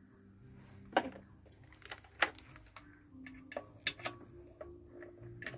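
Irregular clicks and light knocks of handling on a workbench, loudest about a second in, just past two seconds and near four seconds, over a faint steady hum.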